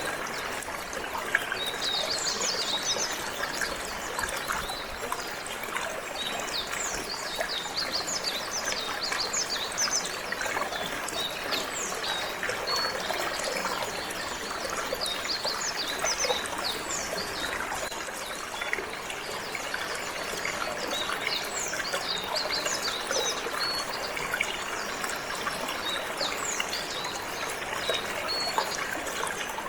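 Water flowing and trickling steadily, with a canary singing rapid high chirps and trills over it throughout.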